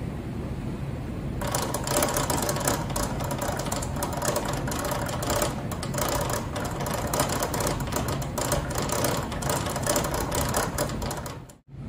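Quasi-direct-drive exoskeleton actuator on a test bench, its motor and steel-toothed partial spur gear chattering and rattling irregularly as it is driven by a pseudo-random torque input. The clatter starts about a second and a half in over a low steady hum and cuts off just before the end.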